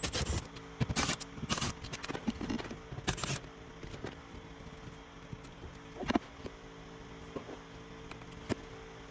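Metal hand tools and Torx bits clinking and rattling as they are handled, a quick run of sharp clicks over the first few seconds, followed by a steady low hum with a few isolated small clicks.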